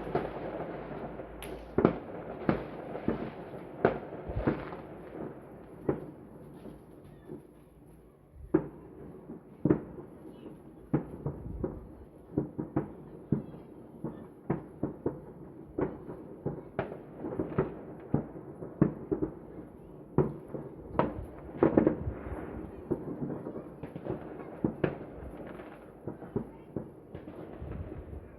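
Fireworks going off all around: a steady run of bangs and pops, near and far, over a constant rumble of distant explosions, with a brief lull about eight seconds in.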